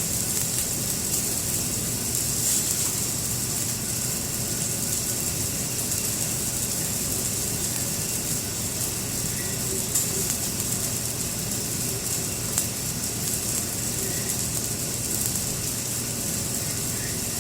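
Filet mignon, fried rice and butter sizzling on a flat-top grill turned up high: a steady, even hiss, with a low steady hum underneath.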